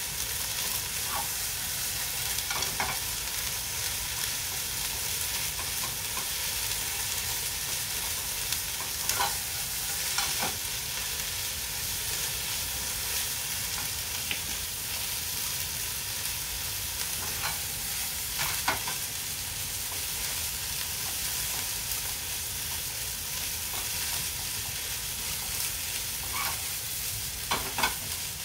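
Food sizzling steadily in a frying pan, with short clinks of a cooking utensil against the pan now and then as it is stirred.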